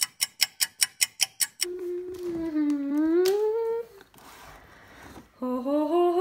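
A quick run of short, ringing ticks, about six or seven a second, stops about a second and a half in. A person then hums a long note that dips and then rises, and starts another hummed note, rising and then held, near the end.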